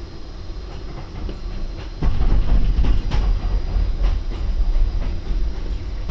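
Moving train: a steady low rumble of the wheels and carriage, with faint clicks of the wheels over the rails. It gets louder about two seconds in.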